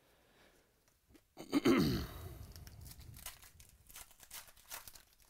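Foil trading-card pack wrapper crinkling and tearing as it is ripped open by hand, in a run of crackly strokes. About a second and a half in comes a short low vocal noise, falling in pitch, which is the loudest sound.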